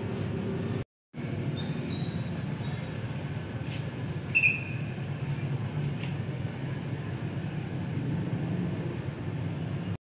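Steady low rumble of a moving vehicle, broken by a sudden dropout to silence about a second in, with one short high tone about four and a half seconds in.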